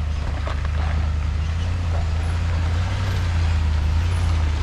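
Ford Super Duty pickup with a slide-in camper crawling slowly over rocks: a steady low engine drone, with a few faint knocks in the first couple of seconds.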